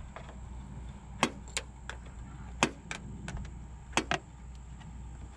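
Hand wrench or socket on the strut's top nuts: sharp metallic clicks and clinks, about eight in uneven pairs, over a low steady hum.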